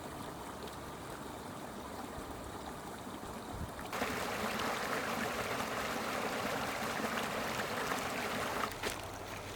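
Steady hiss of crappie fillets frying in hot oil. It gets abruptly louder about four seconds in and falls back shortly before the end.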